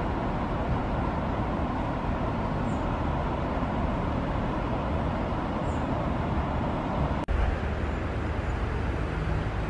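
Steady road traffic noise with no distinct events. About seven seconds in, it cuts off abruptly and gives way to a lower rumbling street ambience.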